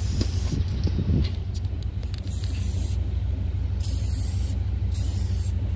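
Aerosol can of red dye penetrant hissing as it is sprayed onto a weld in a series of short bursts with brief pauses between, applying the penetrant stage of a dye penetrant weld test. A steady low hum runs underneath.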